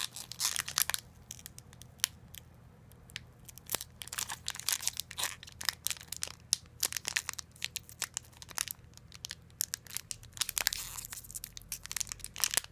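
Foil trading-card booster pack wrapper being crinkled and torn open by hand, a stubborn pack that resists opening. The crackles come in irregular bursts, thickest about the first second and again near the end.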